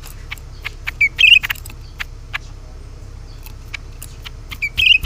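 Cucak ranting bird calling: a short phrase of a brief note followed by a quick, rattling trill, about a second in and again near the end. Sharp, dry ticking clicks are scattered between the calls over a steady low hum.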